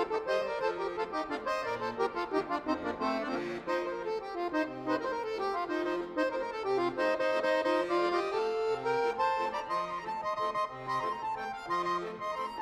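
Instrumental background music: quick running melody lines that fall and then rise again, over a steady, regularly repeating bass beat.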